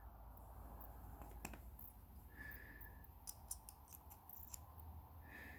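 Faint, light metallic clicks of small padlock core parts, a sliding sleeve and pins, being handled and moved, mostly in a cluster after the middle. Three brief faint steady tones sound about three seconds apart, under a low hum.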